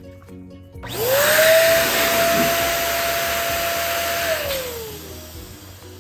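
Small electric air pump running for about three and a half seconds, filling a balloon: a steady rush of air over a motor whine that spins up quickly, holds at one pitch, then winds down when switched off.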